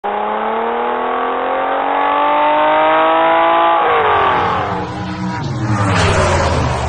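An engine note rising steadily in pitch as the vehicle accelerates for about four seconds, then falling away as a hissy rush builds, like a vehicle speeding past.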